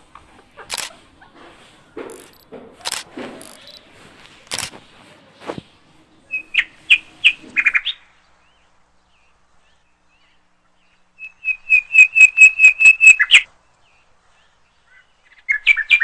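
Pet rose-ringed parakeet giving sharp, rapid chirps: a short run of about six chirps a few seconds in, then a louder run of about a dozen quick chirps, with more starting near the end. Soft knocks and rustles come before the chirps.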